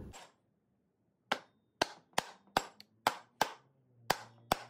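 A wooden-handled hammer tapping the front pump of a 904 TorqueFlite transmission down over its guide dowels into the aluminium case: about eight sharp taps, two to three a second, starting about a second in. This is the pump being seated straight rather than drawn down with its bolts.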